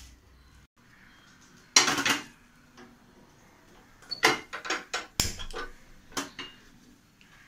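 A steel pot clattering onto a gas stove, then a run of sharp clicks as the stove knob is turned to light the burner.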